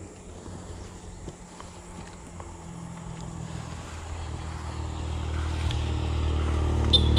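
A motorcycle approaching along the road, its low engine hum growing steadily louder.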